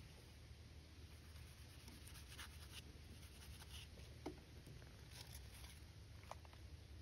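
Faint scrubbing: a wet scouring sponge rubbed with baking soda paste over a rusty steel knife blade in short scratchy strokes, with a couple of light clicks.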